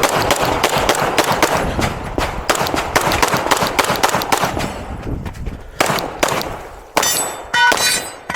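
9mm Glock 34 pistol firing a rapid string of shots, each echoing off the berms. A metallic ringing comes in near the end.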